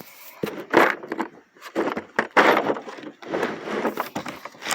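Scraping and clattering as an old Craftsman socket set box is handled and opened, with the sockets shifting inside, in several short bursts.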